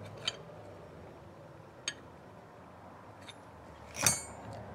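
Light metallic clicks and clinks as a BMW E30 M3 oil filter head with its new fittings is handled and set on the workbench. The loudest is a ringing clink near the end.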